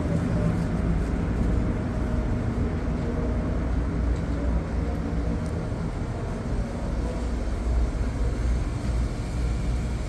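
Steady low hum of a diesel railcar's engine, heard from inside the passenger car, with a few faint level tones over it.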